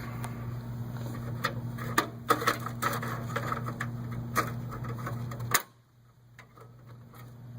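Plastic clicks and knocks of a hard drive's blue plastic caddy being slid back into the drive bay of a Dell Precision T3400 workstation, half a dozen sharp clicks over a steady low hum that cuts off about two-thirds of the way through.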